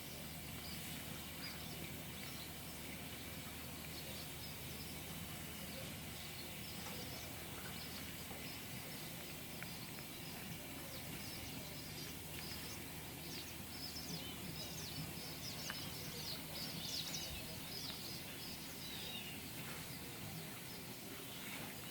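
Steady, faint outdoor background noise with scattered short, high chirps, thickest and a little louder about two-thirds of the way in.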